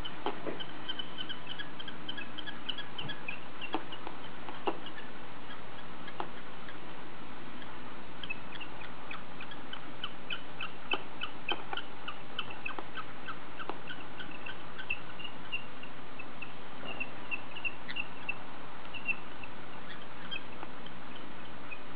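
Quick, high-pitched chirping in runs of several chirps a second over a steady hiss, with a few faint clicks.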